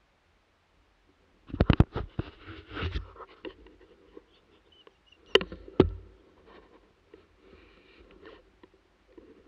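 Handling noise from a rifle-mounted camera: two clusters of sharp knocks, about a second and a half in and again about five and a half seconds in, with scratching and rustling between them as the gun is moved.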